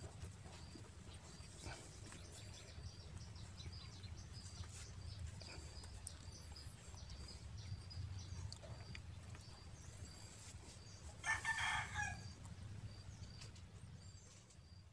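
A rooster crows once, briefly, about three-quarters of the way through, over a faint low hum and a faint high chirping that repeats throughout.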